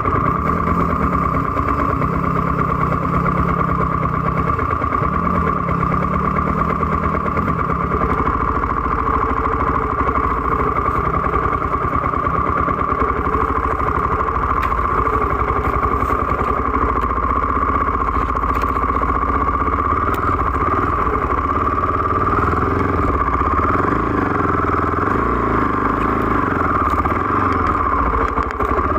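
Off-road dirt bike engine running close by at low trail speed, its revs wavering up and down, more so in the second half.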